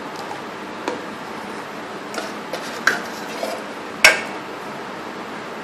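Plastic measuring scoop knocking and scraping against the rim of a metal container while powdered milk is scooped out: a few short sharp clicks, the loudest about four seconds in.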